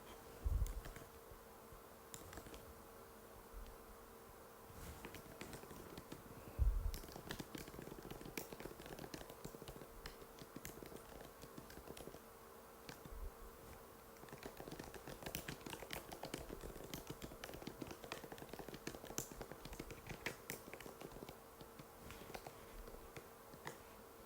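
Typing on an Apple MacBook butterfly keyboard: quick, light key clicks in runs, with two low thumps, one near the start and one about six and a half seconds in. A faint steady hum sits underneath.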